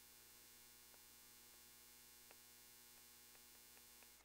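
Near silence: a faint steady mains hum, with a few faint ticks of a stylus tapping on a tablet screen.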